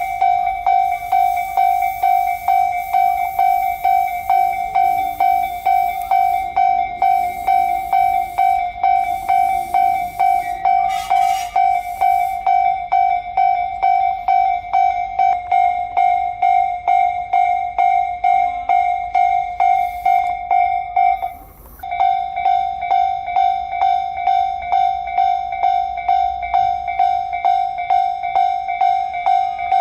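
Japanese level-crossing warning bell ringing, a high electronic clang repeating about twice a second, with a brief break about two-thirds of the way through. A rushing hiss sits under it for the first dozen seconds.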